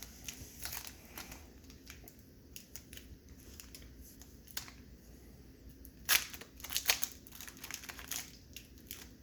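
Trading-card pack wrapper crinkling and tearing as it is opened, in scattered short crackles, loudest about six and seven seconds in.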